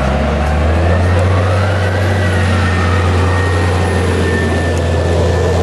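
Claas Jaguar 970 forage harvester, with its V12 diesel, running under load as it chops maize. It makes a steady low engine drone with a high whine that rises and falls slightly, along with the tractor hauling the forage trailer beside it.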